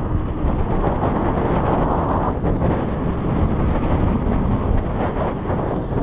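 Strong wind buffeting the action camera's microphone as the bike rolls along, a loud, steady rushing noise.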